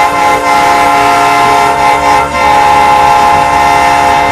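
A multi-note horn sounding in one long, loud, steady blast.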